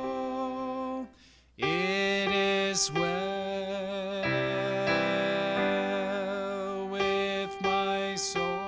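A man's voice leads a hymn refrain at the microphone, with instrumental accompaniment. The music breaks off briefly about a second in, then resumes with long held notes.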